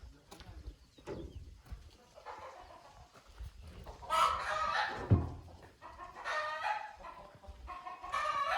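Chickens calling loudly, three strong calls a couple of seconds apart after a fainter one. A single sharp thump about five seconds in is the loudest moment.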